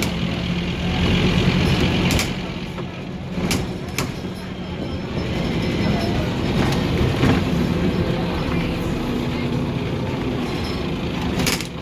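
Scania OmniCity city bus heard from inside the passenger saloon while under way: the diesel engine's steady drone with road noise, and a few sharp rattles and knocks from the body and fittings, one of the loudest near the end.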